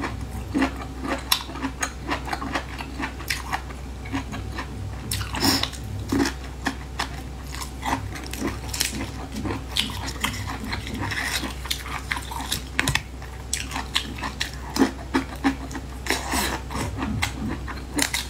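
Close-up eating of boiled bamboo shoots: crisp bites and wet chewing of the fibrous shoot, with the layered sheaths being pulled apart by hand, making irregular short crunches and crackles over a low steady hum.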